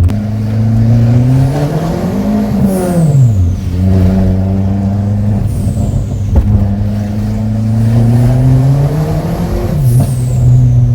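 Turbocharged VW EA111 1.6 8-valve four-cylinder engine of a Golf Sportline running under throttle. The revs climb and drop twice, each drop followed by a high falling whistle.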